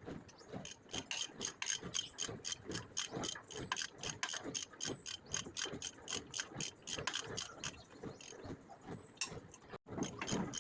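Rapid, even mechanical clicking, about five clicks a second.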